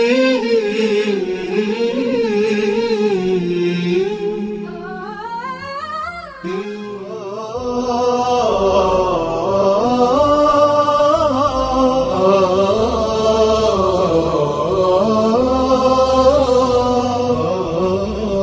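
Music with a singing voice. The voice slides upward about five to six seconds in, and a low bass part comes in at about seven and a half seconds.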